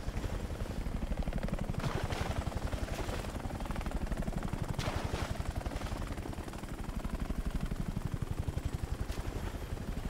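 Puma helicopter hovering low, its rotor blades beating in a rapid, even chop.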